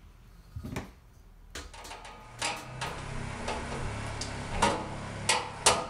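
Clicks, knocks and clanks of a galvanized sheet-steel fan mount panel and blower housing being handled and fastened together, with three sharp metal knocks near the end.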